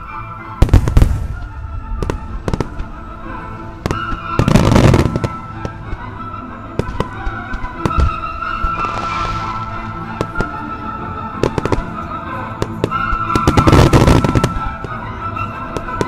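Starmine firework barrage: aerial shells bursting in quick succession, with dense clusters of bangs about a second in, around four to five seconds in, and again near fourteen seconds, over music.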